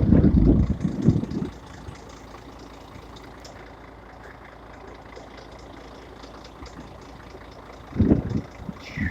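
Blizzard wind buffeting the microphone: heavy low rumbling gusts in the first second and a half and again near the end, with a steady rush of wind between.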